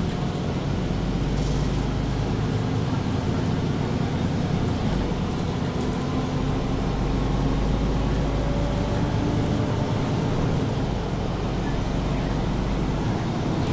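MAN Lion's City G articulated city bus with ZF Ecolife automatic gearbox, heard from on board while driving: a steady diesel engine and drivetrain drone with a low rumble that comes and goes as the load changes.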